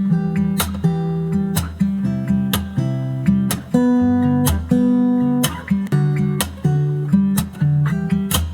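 Background music: strummed acoustic guitar, with chords struck about twice a second.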